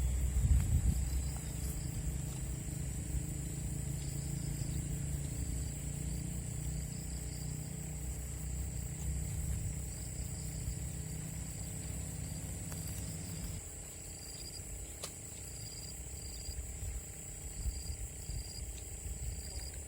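A motor vehicle's engine passing by with a low hum that ends about two-thirds of the way through. Under it, insects keep up a steady high drone and short chirps repeated about once a second.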